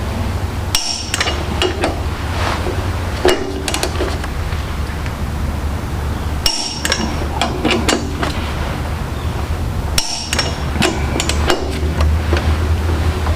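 Click-type torque wrench breaking over with sharp metallic pops, about five times a few seconds apart, as flywheel bolts reach about 90 foot-pounds; a steady low hum runs underneath.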